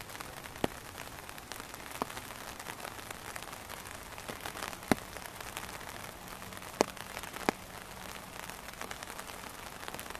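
Steady hiss of water running through a shallow rocky stream, broken by about five sharp ticks; the loudest come about five and seven seconds in.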